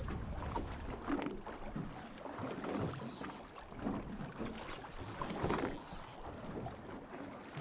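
Water lapping and sloshing against a small boat's hull, with wind buffeting the microphone.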